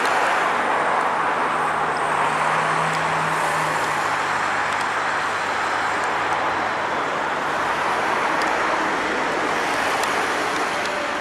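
Victorian Railways S class diesel-electric locomotives, EMD 16-567 engines, running as they haul a train slowly by: a steady engine noise with a low hum beneath it.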